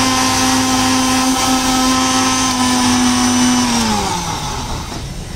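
Sujata electric blender running steadily at full speed on a jar of mango milkshake, then switched off about four seconds in, its motor pitch falling as it winds down.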